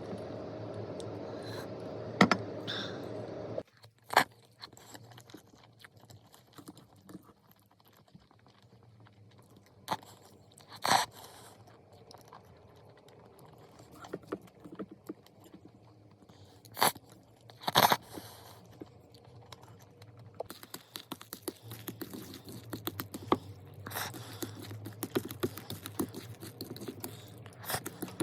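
Close-up eating sounds: chewing and crunching with scattered sharp clicks and scrapes. A steady hum in the first few seconds cuts off abruptly, and about twenty seconds in a dense, continuous crackling begins.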